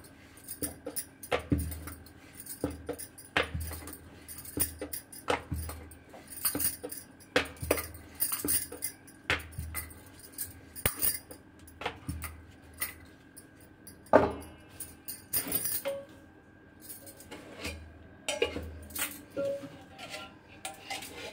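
Wooden rolling pin rolling chapati dough on a bamboo board: a low thump with each back-and-forth stroke, roughly once a second, while bangles on both wrists clink. One louder knock comes partway through, and the strokes die away near the end.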